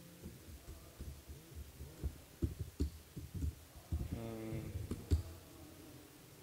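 Laptop keyboard typing: an irregular run of soft low taps with a few sharper clicks as commands are entered. A short hum comes about four seconds in.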